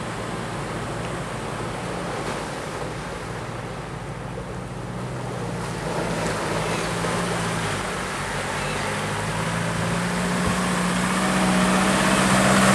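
Land Rover Defender engine running steadily as the vehicle wades through a river towing a trailer, with water rushing and splashing around its wheels. Both grow louder toward the end as it comes closer.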